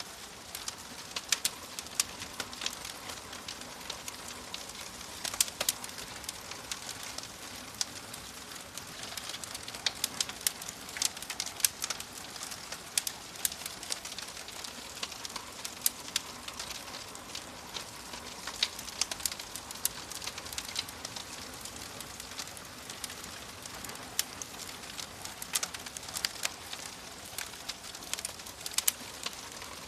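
Wood fire crackling in a fireplace: a steady hiss with frequent sharp, irregular pops and snaps.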